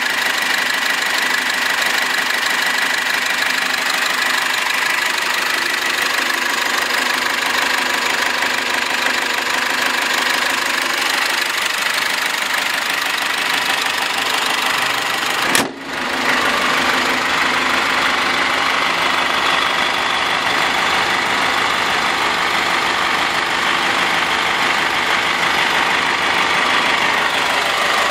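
2.8-litre inline-four turbodiesel of a 2013 GAZ Gazelle idling steadily, heard under the open hood. The sound dips for a moment about halfway through.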